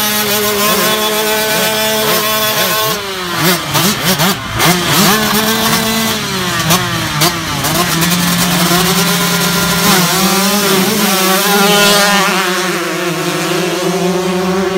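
Several 125cc two-stroke dirt bike engines, a Husqvarna TC125 among them, idling and blipping their throttles together, their pitches rising and falling over one another above a steady idle. A run of sharp cracks and pops sounds about three to five seconds in.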